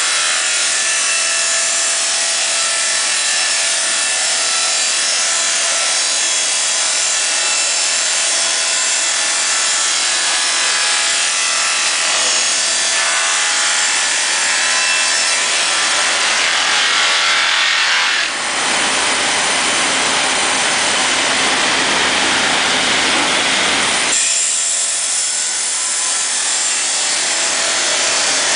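KuangYung MRS multi-blade rip saw running and ripping timber into strips, a loud steady sawing noise. About two-thirds of the way through, the sound turns fuller and deeper for some six seconds, then goes back to its higher, thinner sound.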